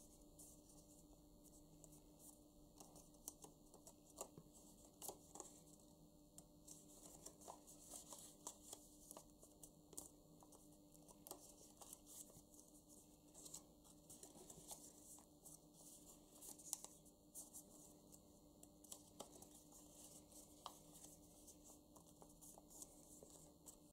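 Faint rustling and crinkling of paper cut-outs being folded and creased by hand, with many small scattered clicks.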